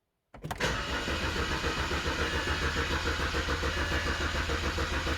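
BMW E87 engine cranking over on the starter motor without catching, with an even pulsing rhythm of about four beats a second. It is the crank-but-no-start fault that the owner traces to a blown fuse leaving the fuel injection without power.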